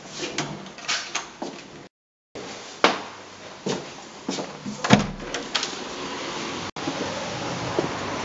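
Footsteps and the knocks and clunks of a wooden door with a metal lever handle being opened and closed, the loudest clunk about five seconds in. Near the end the sound switches abruptly to a steady hiss of outdoor street ambience.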